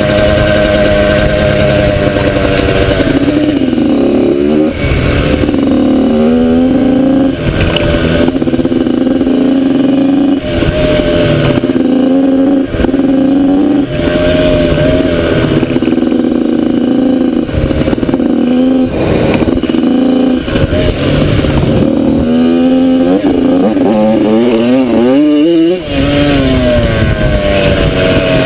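Yamaha YZ85's single-cylinder two-stroke engine running hard under the rider, its pitch falling and rising with throttle and gear changes, with a few brief drops in loudness as the throttle is let off.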